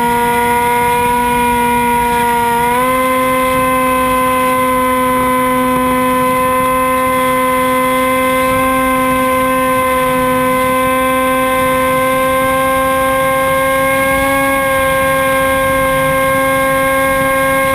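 Electric motor and propeller of a Hawk Sky RC plane in flight, a steady whine with wind rushing over the wing-mounted camera. The pitch steps up slightly about three seconds in and then holds.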